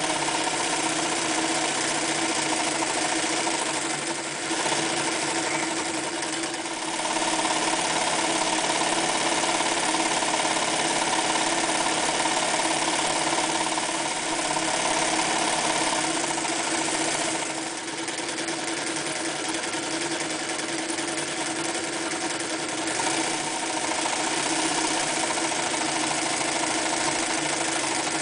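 Singer 316G sewing machine running steadily under power, needle bar stitching a decorative zigzag through fabric, with a couple of brief dips.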